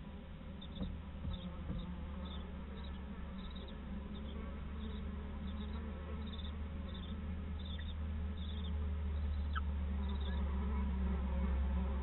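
A steady low buzzing hum that grows louder toward the end, with faint short chirps repeating about twice a second.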